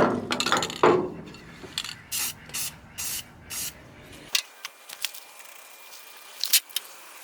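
Aerosol spray-paint can sprayed in about five short hissing bursts, then once more near the end, painting over fresh welds on a rotary cutter deck. Some louder handling noise comes in the first second.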